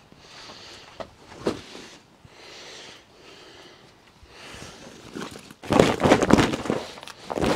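Clear plastic sheeting being handled, with soft rustles at first, then a loud crackling crinkle about six seconds in and another short one near the end.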